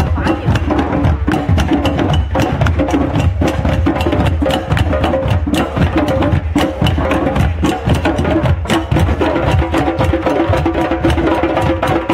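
A drum circle of djembes and other hand drums played together in a steady, dense rhythm of many strikes a second, with no break.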